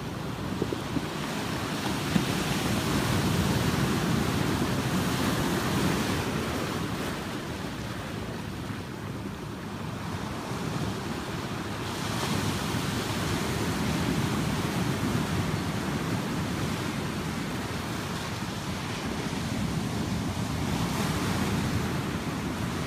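Ocean surf breaking on a rocky shore and washing through the cobbles, a steady rush that swells and fades in slow surges every several seconds.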